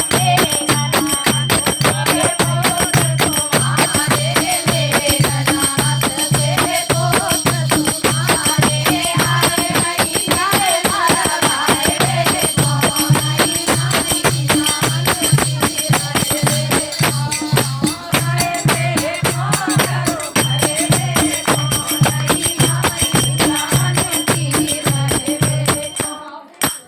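Indian folk bhajan music with a steady low drum beat, busy rattling percussion and a wavering melody line. It stops abruptly just before the end.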